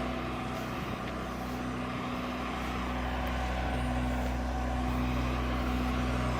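A vehicle engine running with a steady, even low hum.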